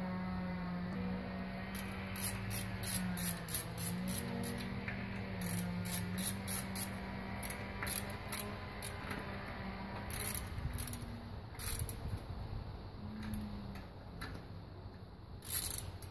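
Ratchet wrench clicking in short runs while bolts are turned at the front of the engine: a quick string of clicks early on, then scattered ones. A faint low melody carries on underneath.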